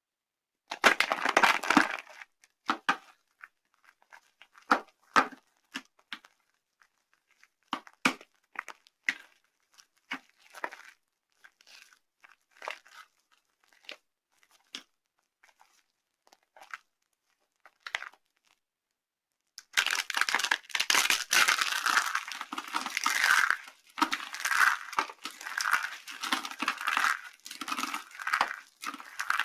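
Dry, brittle soap being crushed and crumbled: a short dense burst of crunching near the start, then scattered crisp snaps and small crumbles, and from about two-thirds of the way through a long run of continuous crunching and crackling.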